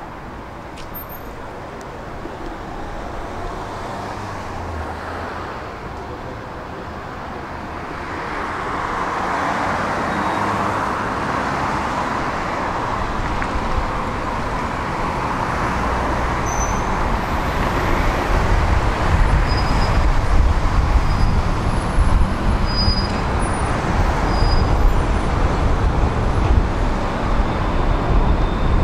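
City road traffic passing a tram stop, with a low rumble that grows louder through the second half as a tram approaches.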